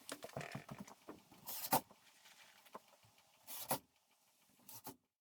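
Work noises from drywall installation: a few short scraping or rustling noises, one to two seconds apart, with faint rustling between them. The sound cuts off abruptly near the end.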